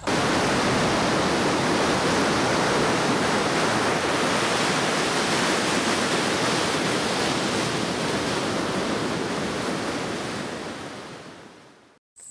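Ocean surf breaking on a beach, a steady rushing wash that fades out over the last few seconds.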